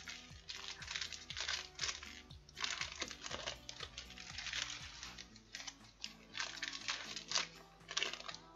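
Foil wrappers of baseball card packs crinkling in a run of short bursts as they are torn open by hand. Background music with a steady beat plays underneath.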